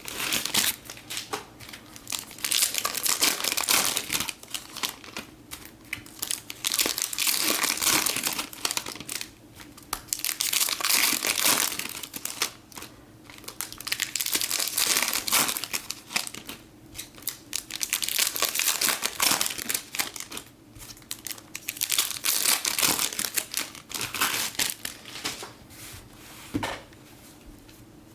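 Foil trading-card pack wrappers crinkling and tearing as packs are opened by hand. It comes in repeated bursts of a second or two with short pauses between them.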